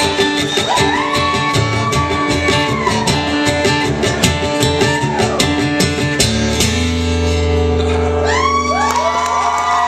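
Live male vocal with strummed acoustic guitar. About six and a half seconds in the strumming stops and a final chord rings on under a last held sung note as the song closes.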